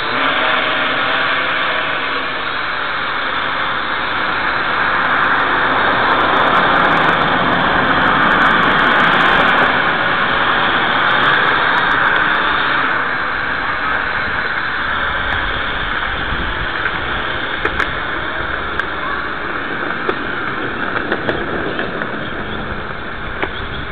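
Quadcopter drone's rotors buzzing steadily as it hovers and flies overhead, growing louder in the middle and easing off later. A few faint ticks in the second half.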